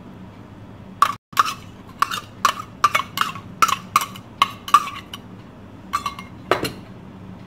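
A metal spoon scraping ginger-garlic paste out of a small steel bowl, with a string of short ringing clinks about two a second. A heavier knock comes near the end.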